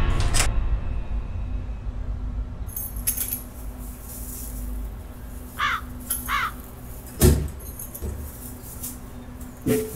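Keys jangling and a lock clicking as a front door is unlocked and opened, with a crow cawing twice. About seven seconds in, the door shuts with a heavy thud, and a softer knock follows near the end.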